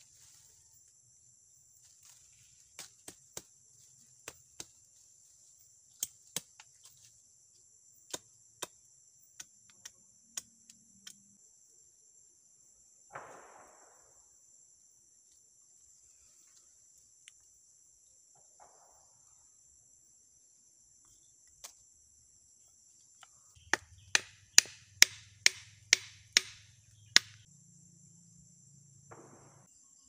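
Machete blade striking wood as trap sticks are cut and shaped: scattered single knocks, then a quick run of about eight hard chops about three-quarters of the way through. Insects trill steadily underneath.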